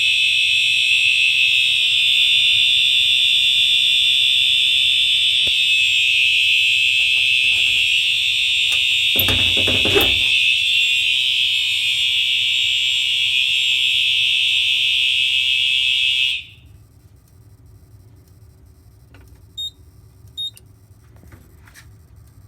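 A home fire alarm system's audible devices sounding a loud, continuous high-pitched tone during a general alarm (bell) test, triggered from a key-activated pull station. The tone cuts off suddenly about two-thirds of the way in, and a few seconds later there are two short high beeps.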